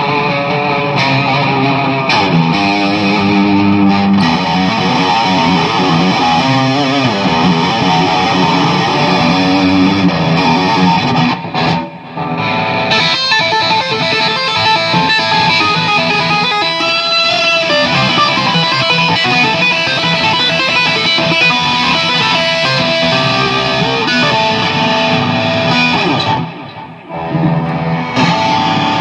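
Electric guitar played through a Peavey Vypyr 75 watt modelling combo amp, with two short breaks in the playing: the amp is producing sound again after its blown fuse was replaced.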